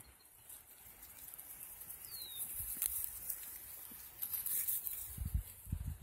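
Faint rustling of footsteps through pasture grass, with a bird's short falling chirp about two seconds in and a few low thumps near the end.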